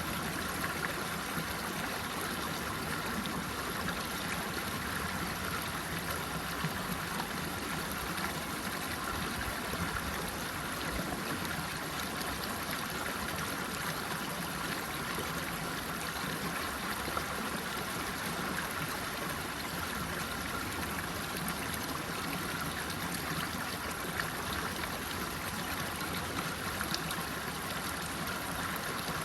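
Running water: a steady, even babble of flowing water like a small stream.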